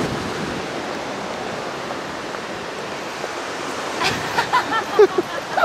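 Steady rush of a shallow rocky river running over rapids below a bridge. From about four seconds in, brief voices come over it.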